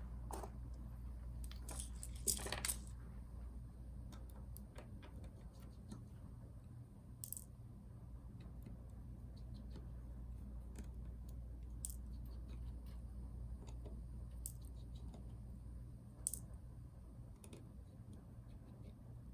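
Scattered small metallic clicks and taps of a screwdriver and tiny screws being handled on a MacBook Pro's keyboard and case during disassembly, with the busiest cluster about two seconds in. A low steady hum runs underneath.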